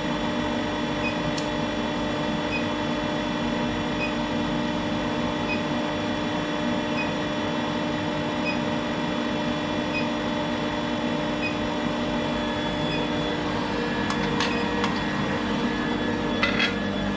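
Steady workshop machine hum with several constant tones and a faint tick about every second and a half; a few light metallic clicks near the end.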